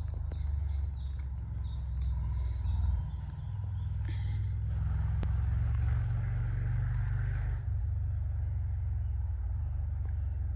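A songbird singing a quick run of about eight short, high repeated notes over the first three seconds, over a steady low rumble; a single sharp click about five seconds in.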